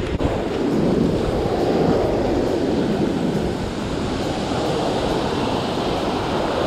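Ocean surf breaking and washing up a sand beach close by, a steady rushing wash that swells louder over the first couple of seconds as a wave runs in.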